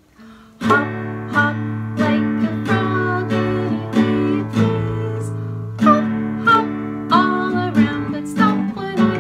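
Nylon-string classical guitar strummed in a steady rhythm, a chord roughly every half second, with one chord left to ring a little longer about halfway through.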